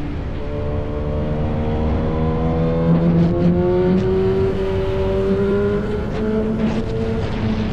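Sport motorcycle engine running through an open aftermarket exhaust, accelerating with its pitch climbing steadily for about four seconds. The engine note wavers briefly near six seconds in, then holds a steady pitch.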